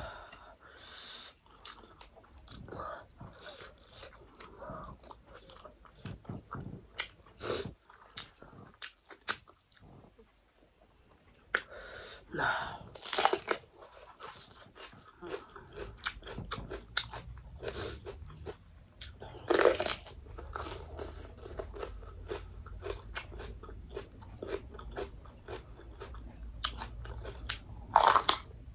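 A person chewing and crunching food close to the microphone: a run of crisp crunches and small wet chewing clicks, with a few louder bites, the loudest near the end.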